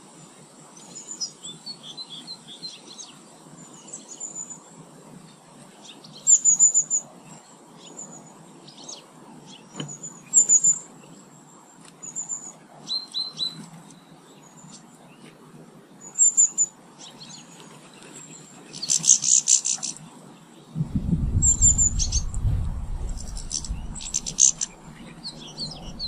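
Small garden birds chirping, with short high call notes and brief trills scattered throughout and a louder burst of rapid chattering about three-quarters of the way through. A low rumble comes in shortly after that and fades before the end.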